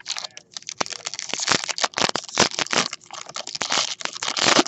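Crinkling and crackling of a foil baseball-card pack wrapper being handled and torn open, a dense run of quick crackles that gets loudest near the end.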